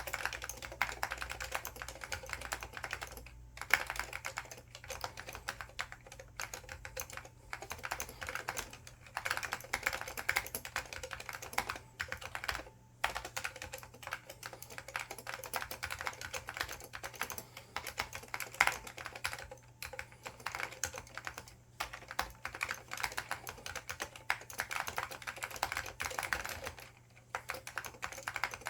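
Continuous fast typing on an IBM 5556-003 Multistation keyboard with Alps SKCL Green switches and ABS doubleshot keycaps: a dense run of keystroke clicks broken by a few short pauses.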